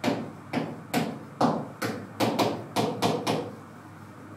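A stylus tapping and knocking on the glass of an interactive display board while handwriting: about a dozen sharp taps at an uneven pace, stopping about three and a half seconds in.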